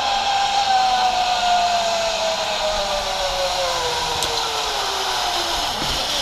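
Zip line trolley whirring along the steel cable, its pitch falling steadily as the rider slows on arrival, stopping near the end.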